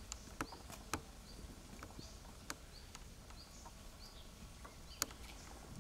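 Quiet outdoor ambience: faint, high bird chirps scattered through it, with a few light clicks, the sharpest about five seconds in.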